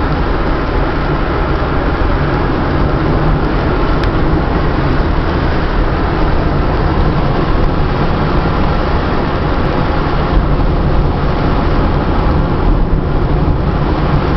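Steady road and wind noise of a moving car, a continuous rumble with no change in engine pitch.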